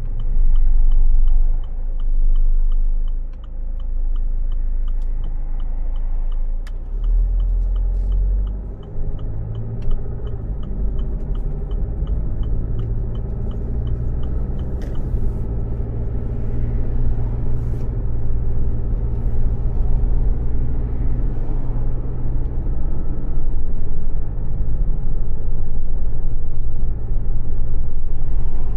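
Car engine and road rumble heard from inside the car, with a turn-signal indicator clicking in a fast, even rhythm for about the first half before it stops.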